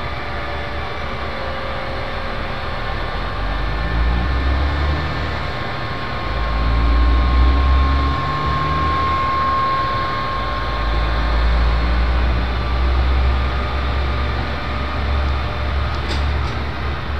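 Engine of a truck-mounted roofing crane running, a low rumble that swells and eases several times, with a faint high whine in the middle.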